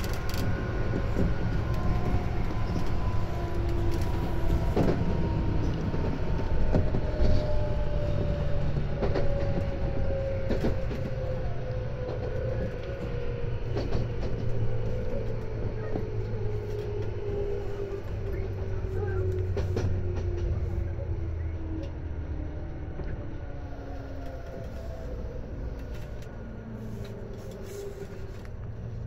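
Running sound inside a Tobu 10030-series electric train slowing down. The traction motor and gear whine falls steadily in pitch over a low running rumble with scattered wheel clicks, and it grows quieter towards the end as the train brakes.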